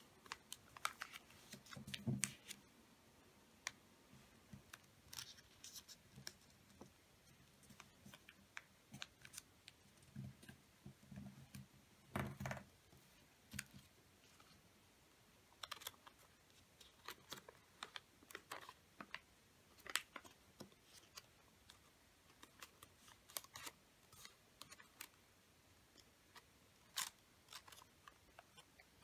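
Faint crisp rustles and clicks of a sheet of origami paper being folded and creased by hand, scattered irregularly, with a few duller knocks about two seconds in and again around ten to twelve seconds in.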